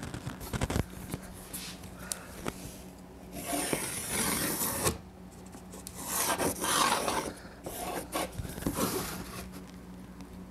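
Pencil and steel rule scraping across a plywood board while a cut line is marked out: a few light knocks, then three scratchy rubbing strokes, each a second or so long.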